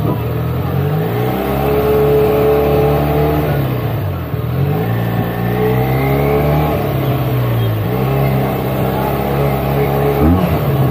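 Benelli 302S parallel-twin engine through its stock exhaust, riding in traffic: the engine note rises, holds and drops back about three times as the throttle is opened and closed.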